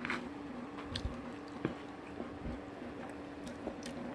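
Someone chewing bites of fried, sugar-coated sweet potato (kamote cue), with a few small soft crunches and clicks, over a faint low steady hum.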